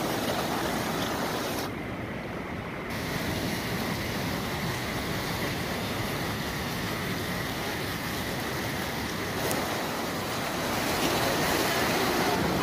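Swollen river in flood rushing through its walled channel: a steady noise of fast, turbulent water, growing a little louder near the end.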